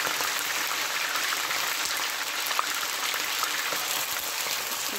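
Raw chicken pieces frying in hot oil in a nonstick pan: a steady sizzling hiss with fine crackles.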